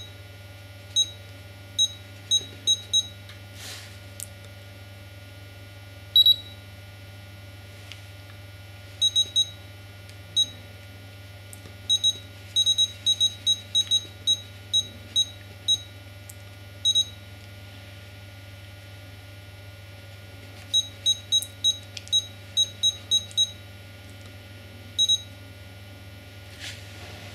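Futaba T8FG radio-control transmitter giving short high key-press beeps, one at a time and in quick runs of several a second, as menu values are stepped with its keys; one longer, louder beep about six seconds in. A steady low hum sits underneath.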